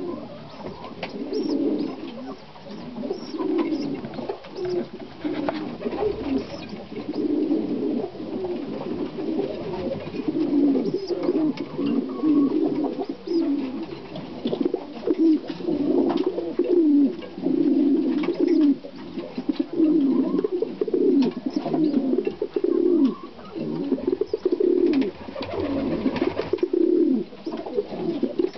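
Broody hens clucking low and steadily, a short call roughly every second, with a few faint clicks.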